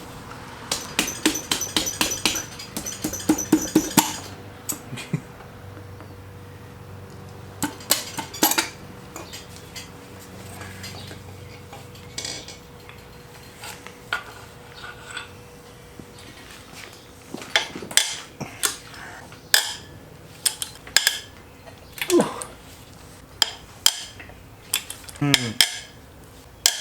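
Metal tools and parts of a Porsche 944 engine clinking and clanking during teardown: a quick run of about a dozen sharp ringing clicks in the first few seconds, then scattered knocks and clinks, over a faint steady hum.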